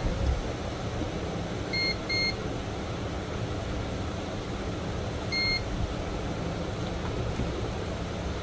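Digital multimeter's continuity beeper giving short high beeps as the test probes touch points on a phone circuit board: two quick beeps close together, then one more a few seconds later. A steady low hum runs underneath.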